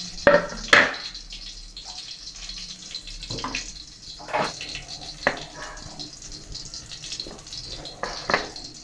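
Kitchen work sounds: a steady high hiss under a scattering of sharp knocks and clicks from utensils, the last of them a knife striking a wooden chopping board near the end.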